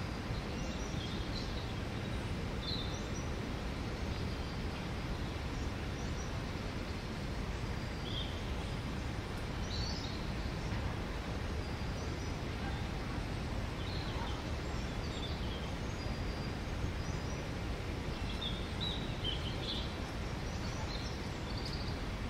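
Garden ambience: a steady low background rumble with scattered short bird chirps and calls, high-pitched and coming every second or two.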